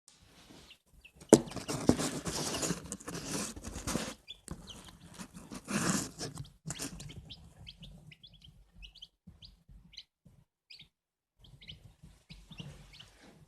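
Newly hatched chicks peeping, short high chirps scattered throughout. About a second in, a sharp knock starts a loud rustling noise that lasts a few seconds, and a second shorter burst comes near the middle.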